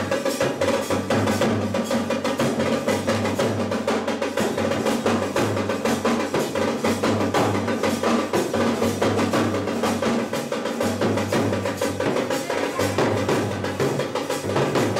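A uniformed band's drummers playing fast, steady drumming, with a pitched instrument sounding underneath.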